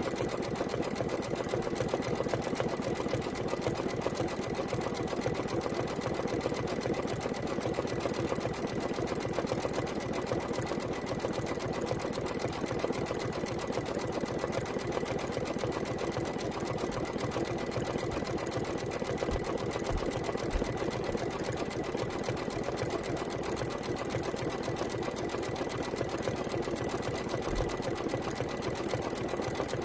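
Embroidery machine stitching out a design in a hoop, its needle running at a steady fast pace with a dense, even ticking.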